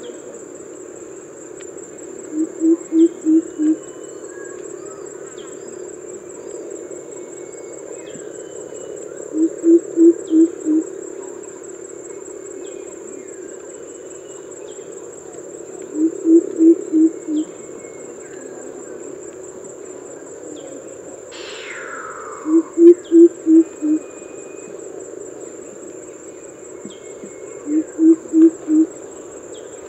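Greater coucal calling its deep "coop-coop-coop": five runs of five or six low hoots, about six seconds apart, over a steady high-pitched insect drone. A short falling whistle sounds once, about twenty-one seconds in.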